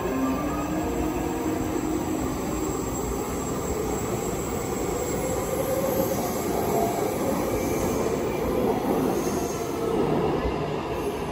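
Taipei Metro train approaching through the tunnel and pulling into an underground platform: a steady rumble that grows from about four seconds in, with a high, thin wheel squeal around seven to nine seconds in.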